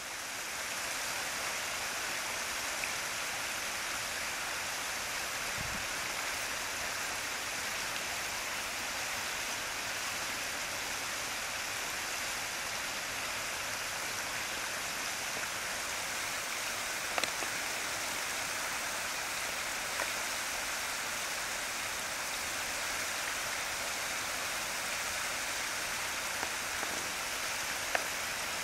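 Creek water running steadily over and through a beaver dam, an even rushing hiss, with a few faint clicks later on.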